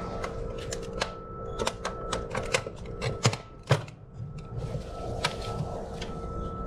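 Metal tools and fasteners clicking and clinking irregularly in an engine bay: a dozen or so quick ticks and knocks, thickest in the first four seconds. A steady hum with a faint high whine runs underneath.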